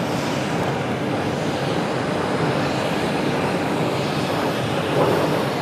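Jet noise from Blue Impulse's Kawasaki T-4 twin-turbofan trainers flying high overhead, a steady rushing rumble that swells slightly near the end.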